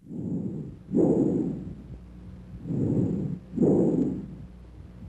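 Bronchial breath sounds from a chest auscultation recording: two breath cycles, each an inspiratory sound, a short silent gap, then a louder expiratory sound.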